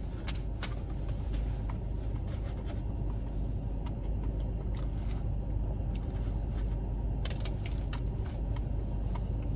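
Steady low rumble inside a car's cabin, with a few faint short clicks scattered through it.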